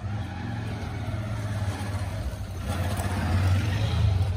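An engine running close by, a low steady hum that grows louder over the last second or two.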